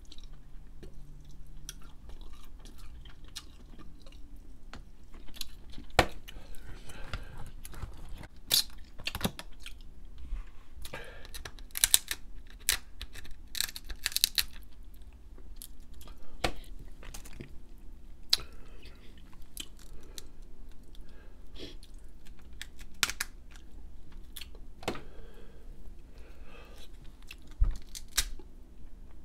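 Close-up eating of Dungeness crab: shell pieces cracked and picked apart by hand, and the meat bitten and chewed, giving scattered sharp clicks and cracks with wet chewing between them.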